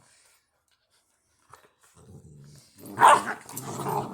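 Labrador puppies play-fighting: quiet at first, then a low growl about two seconds in, followed by loud barks near the end.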